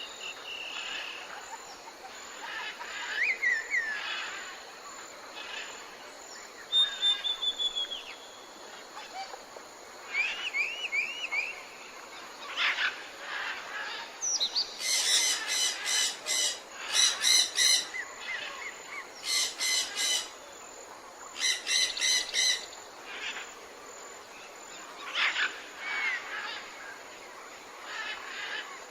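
Wild birds chirping and calling, with short whistled notes and glides scattered throughout. In the middle come four louder bursts of rapid pulsed, rattling calls, each about a second long.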